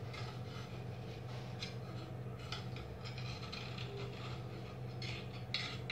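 Knife scraping around idlis in a stainless-steel idli mould plate to loosen them: faint scrapes and a few light clicks of the blade against the metal, over a steady low hum.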